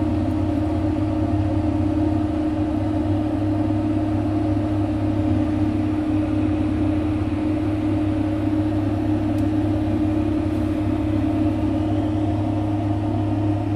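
Steady low mechanical hum made of a few held tones over a rumble, unchanging throughout.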